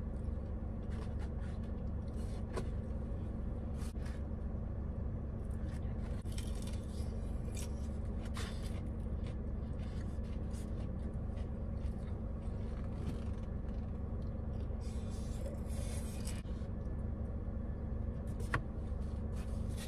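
Mukbang eating sounds: chewing fried food, with small clicks and scrapes as paper food boxes and a sauce cup are handled, and a sharper click near the end. Under it runs the steady low hum of a car idling.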